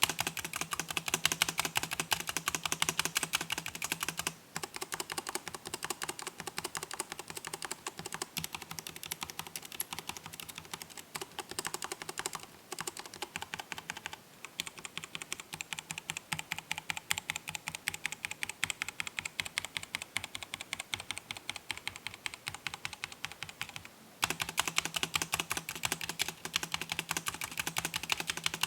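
Mechanical keyboard with tactile switches being typed on and pressed rapidly, a dense run of clacking keystrokes; the sound changes in character about four seconds in and again near the end.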